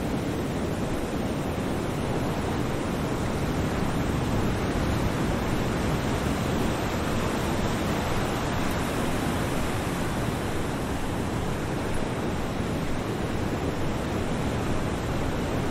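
Steady rushing noise with no separate events, like a surf-style ambience bed, turning a little brighter about nine seconds in.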